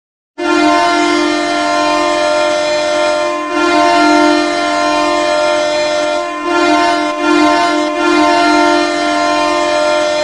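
Ottawa Senators' arena goal horn blasting one long, steady chord of several pitches, starting about half a second in and dipping briefly a few times.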